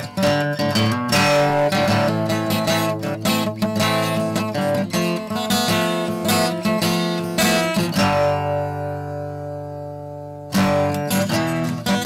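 Background music of strummed acoustic guitar; about two-thirds through, one chord is left to ring and fade before the strumming starts again.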